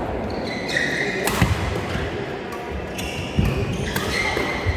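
Badminton rally: sharp cracks of racket strings hitting the shuttlecock, about a second in and near the end, with shoe soles squeaking on the court mat and thudding footfalls between the shots.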